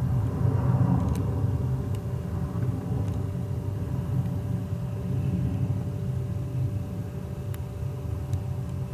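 Jet engines of a Boeing 737-500 (CFM56 turbofans) running as the airliner rolls along the runway: a steady low rumble with a steady whine over it, easing off a little toward the end.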